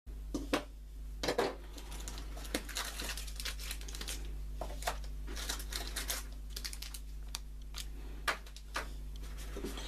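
Packaging being handled: a cardboard box, a hard zip case and small plastic accessory bags rustling and crinkling, with scattered clicks and taps, over a steady low hum.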